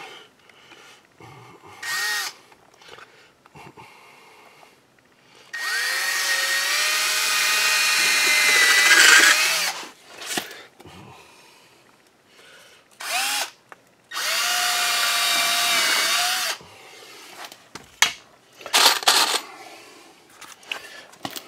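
Milwaukee cordless drill driving screws into a pressure-treated wood block, running in bursts. There is a short burst first, then two long runs of a few seconds each where the motor's pitch climbs and holds, then a few brief pulls of the trigger near the end.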